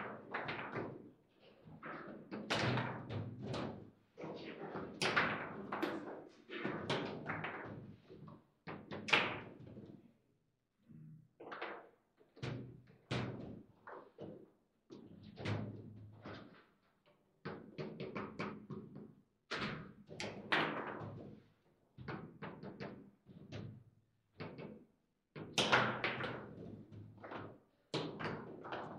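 Table football in play: the ball and the rods clacking and knocking against the plastic players and the table, in quick irregular clusters of sharp knocks, several a second, with a short lull about ten seconds in.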